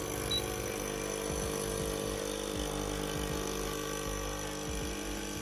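HiBREW H10B espresso machine's pump running with a steady, even hum while pulling an espresso shot.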